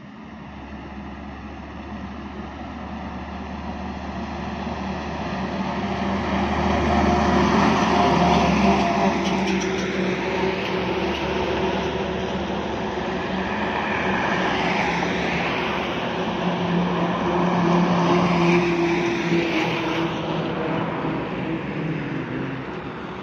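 Road vehicles passing on a highway, the sound swelling as each one comes and goes: loudest about eight seconds in, then again around fifteen and eighteen seconds.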